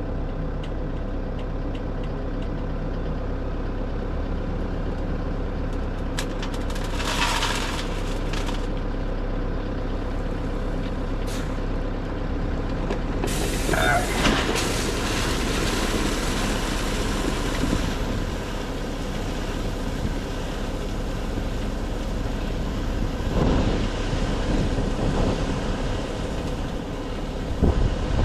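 Dump truck's diesel engine running steadily, with two short bursts of air hiss from its air brakes, about seven seconds in and again around fourteen seconds.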